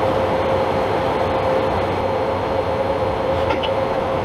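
Steady mechanical hum with a constant tone, from a machine running in the workshop, and a light metallic clink of a hand tool against a steel bushing about three and a half seconds in.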